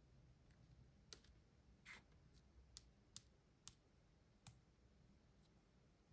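Faint, quick clicks and taps, about six at irregular intervals over a few seconds, one of them a softer, longer scrape.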